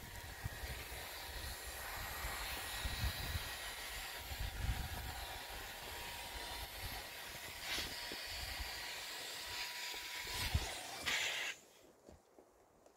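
Electric air pump blowing air through a hose into a large inflatable toy: a steady rushing hiss with a faint whine, which cuts off suddenly near the end.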